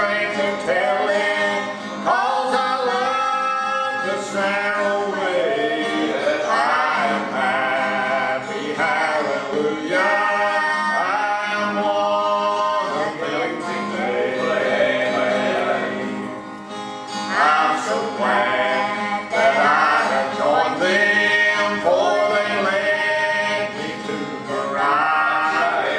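A man and a woman singing a gospel song as a duet, accompanied by his acoustic guitar.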